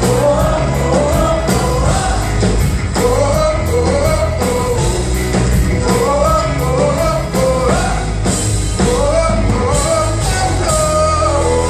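Live contemporary worship band playing: singers' melodic phrases rising and falling over a steady drum beat with regular cymbal hits, bass and guitar, moving into held notes near the end.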